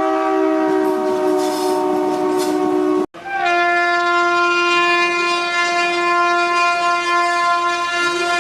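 Indian Railways locomotive horn blowing a long, steady blast that cuts off abruptly about three seconds in. A moment later another locomotive horn sounds a second long held blast.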